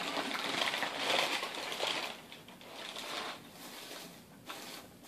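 Brown kraft packing paper crumpling loudly as it is pulled out of a cardboard box, followed by softer rustling of white packing filler being dug through.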